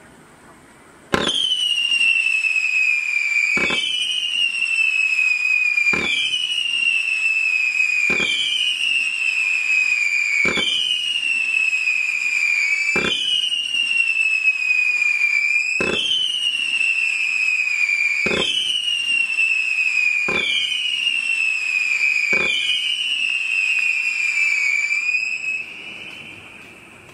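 Celtic Fireworks 'Go Whistle' firework firing about ten whistling shots, one every two to two and a half seconds. Each is a sharp pop followed by a shrill whistle that falls slightly in pitch and runs into the next. The last whistle fades out near the end.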